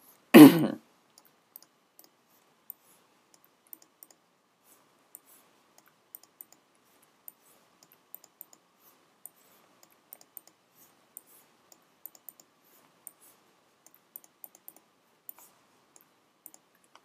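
Faint, unevenly spaced computer mouse clicks, about two a second, as interface buttons are control-dragged and connected one after another. A short, loud sound about half a second in.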